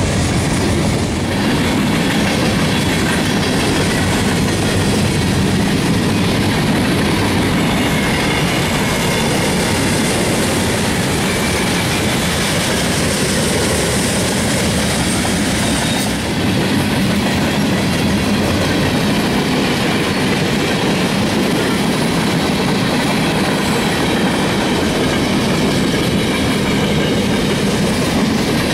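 Freight cars of a passing mixed freight train rolling by: a steady noise of steel wheels running on the rails.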